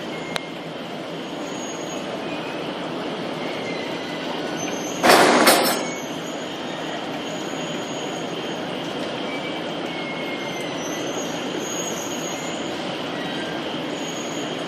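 Cellulose cooling-pad making machine running with a steady mechanical noise and faint intermittent high squeaks. About five seconds in, a louder burst of noise lasts about a second.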